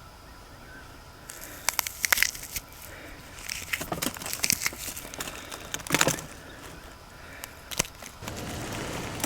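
Irregular crunching and crackling, a string of sharp crackles with the loudest clusters about two and six seconds in, like something being crushed. A steadier hiss sets in near the end.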